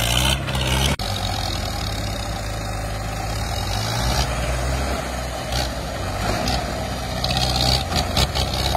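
Two old diesel tractor engines, a Mahindra and a Ford, running steadily together under heavy load while they pull against each other in a tug-of-war.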